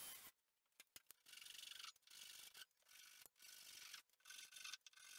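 A flush-cut hand saw sawing with short back-and-forth strokes, trimming wooden plugs flush with a pine workbench top. There is a brief burst from a cordless drill at the very start.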